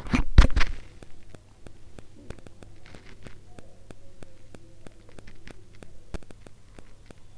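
A spatula scrapes and knocks through dry roast chicken fry in a white frying pan for about the first second. The still-hot pan then gives faint, scattered crackling and ticking. A glass lid knocks onto the pan about six seconds in.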